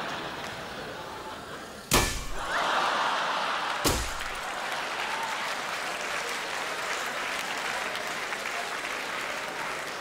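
Two hard blows of a wooden mallet smashing a red toy car on a stage floor, about two seconds apart, the first the louder, with pieces breaking off. An audience laughs and applauds after each blow.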